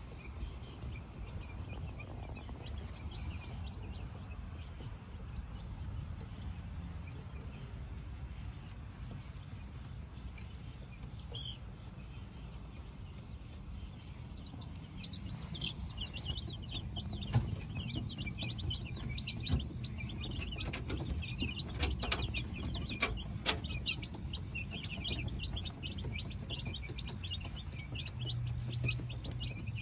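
Crickets chirping steadily throughout. From about halfway, many short falling peeps of young chicks join in, with a few sharp knocks.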